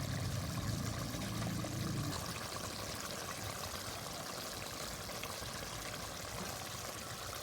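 A steady, even watery hiss, with a low hum that fades out about two seconds in.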